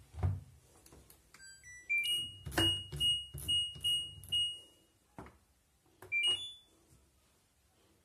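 LG front-loading washing machine's control panel beeping: a short rising chime of stepped notes, then about six quick identical beeps as the program dial is turned, and a rising two-note beep about six seconds in as the short program is set to start. Soft knocks of the dial and panel are heard under the beeps.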